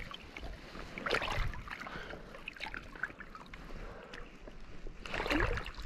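Shallow seawater sloshing and splashing in a rock pool, with louder splashes about a second in and again near the end.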